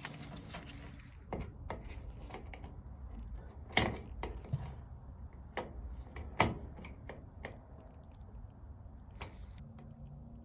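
Scattered light clicks and taps, with a few sharper strikes, as multimeter test probes are handled and touched to a dryer's 30 amp fuse. No continuity beep sounds, the sign that the fuse is open.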